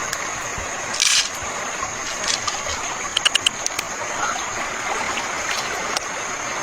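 Steady rushing noise like flowing stream water, with scattered short clicks and splashes and a steady high hiss running through it.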